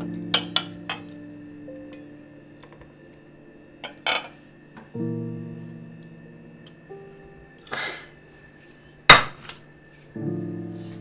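Metal spoon clinking and scraping in steel cooking pots as food is served into a bowl, with one sharp clang about nine seconds in. Background music plays slow sustained chords three times, about five seconds apart.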